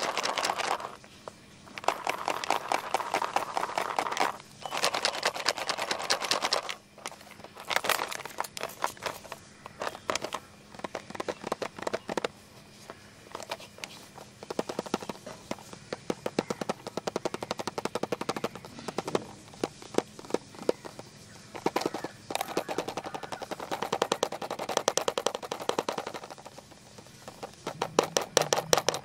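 Fingernails scratching and tapping on a plastic pencil box, making runs of rapid clicks. The runs come in bursts of a few seconds with short breaks between them.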